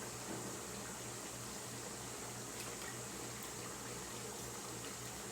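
A pot of chicken and pork adobo simmering on low heat: a steady, soft bubbling hiss.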